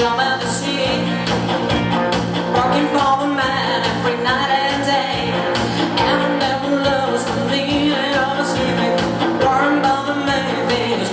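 Pop-rock band music with a singing voice over a steady drum beat.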